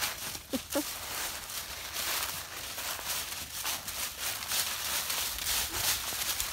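Irregular crunching and rustling, with two short pitched sounds just under a second in.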